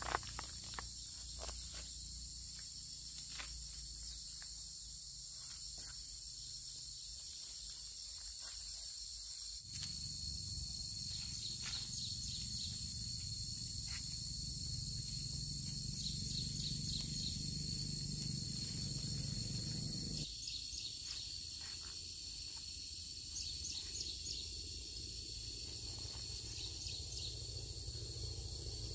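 Steady insect chorus of several high, even tones, with scattered rustles and small snaps of leaves and stems as fruit is picked by hand.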